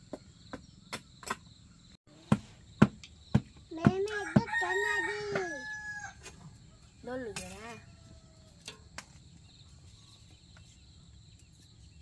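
A rooster crowing once, about four seconds in, a stepped call ending in a long held note, followed about a second later by a shorter call. A few sharp knocks before the crow.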